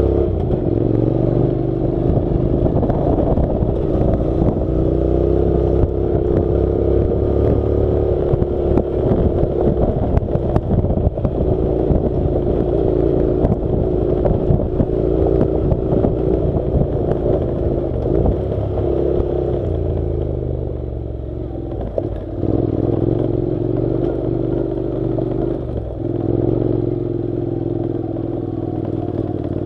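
Honda NC700's 670 cc parallel-twin engine running steadily while ridden over a dirt track, with rattling and knocking from the gravel surface and suspension. The engine eases off about two-thirds of the way through and picks up again shortly after.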